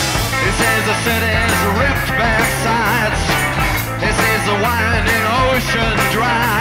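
Background music with a steady beat, held bass notes and a wavering lead melody.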